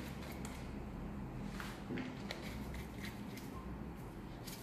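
Faint clicks and light taps of plastic ink bottles being handled, over a steady low hum.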